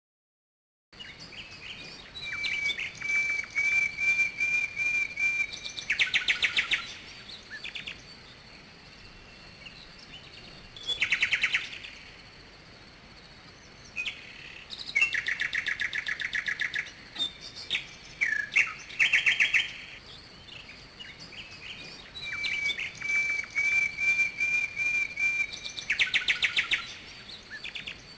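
Birdsong: chirps and high trills in bursts every few seconds over a faint steady hiss, starting about a second in. The same phrases come round again near the end.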